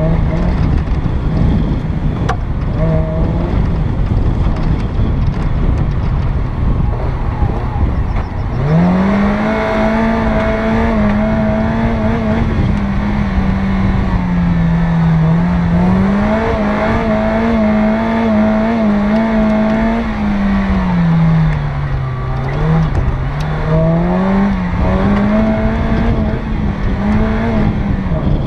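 Off-road 4x4's engine running under load as it drives over rough grass, with a steady rumble of wind and chassis noise. About eight seconds in the engine revs up and then keeps rising and falling in pitch with the throttle.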